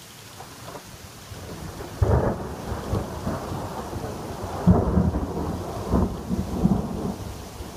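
Thunder: a sharp clap about two seconds in, then a rolling rumble with louder peals near five and six seconds that eases off near the end, over the steady hiss of rain.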